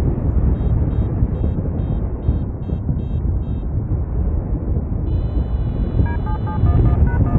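Wind rushing over the microphone in flight under a paraglider, with an electronic variometer beeping over it. First comes a run of quick high beeps, about three a second, the sound a vario makes when climbing in lift. Later a steady high tone comes in, followed by shorter, lower beeps that change pitch near the end.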